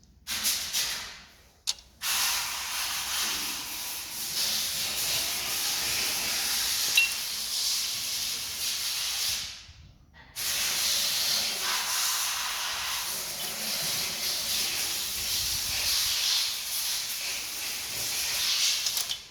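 A pressurised jet hissing loudly in long blasts, as from a blow gun or spray can. It stops briefly about two seconds in and again near the halfway point, then resumes.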